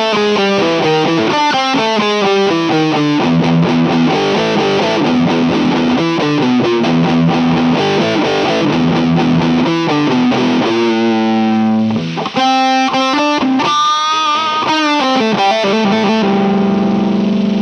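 Electric guitar with active EMG 81/85 pickups (an Epiphone SG 310) played through a distorted amp-sim, a run of fast picked notes stepping up and down in pitch. There is a brief break about twelve seconds in, then longer held notes near the end.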